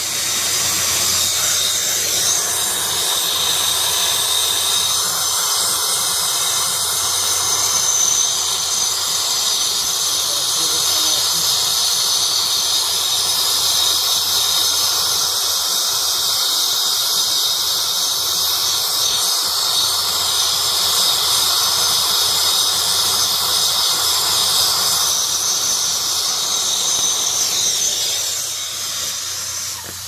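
Brazing torch flame hissing steadily with a faint high whistle as it heats copper refrigerant line joints to unbraze them. The hiss eases off briefly near the end.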